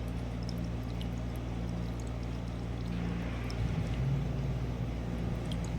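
A steady low machine hum that shifts slightly in pitch a little past halfway, with a few faint light ticks over it.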